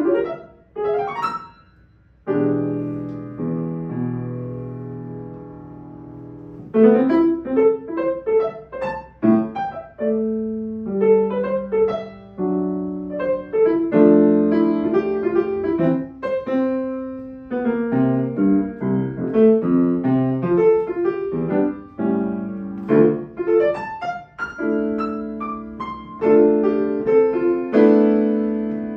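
Solo grand piano playing spread seventh chords at uneven, jumpy rhythms. A few short chords open it, then one chord is held and left to ring for about four seconds, and from about seven seconds in, quick chords come thick and fast.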